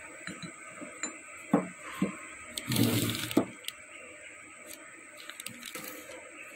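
Metal gear-pump parts being handled on a workbench covered with newspaper: a few light knocks and clinks, and a short noisy clatter about three seconds in, over a steady background hum.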